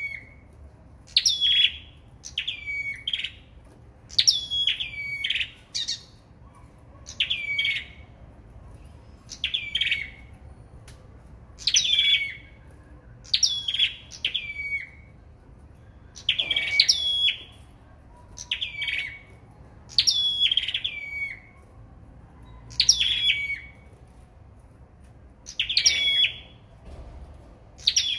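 Caged sâu đầu đỏ songbirds singing against each other in duel. A short, loud whistled phrase that drops in steps is repeated about every one and a half seconds.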